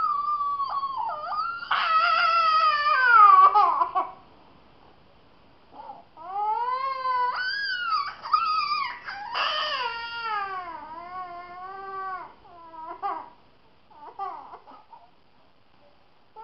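A young child crying out in pain with long, high-pitched wails that bend up and down in pitch: one long cry sliding downward, a short pause, then a run of shorter rising-and-falling cries that grow fainter and break off.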